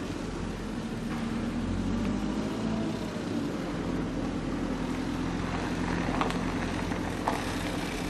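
Diesel engines of construction machinery such as backhoe loaders, running steadily at low revs, with two short metallic clanks near the end.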